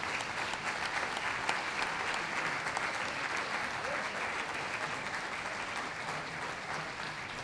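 Audience applauding steadily, a dense patter of many hands clapping that slowly grows quieter toward the end.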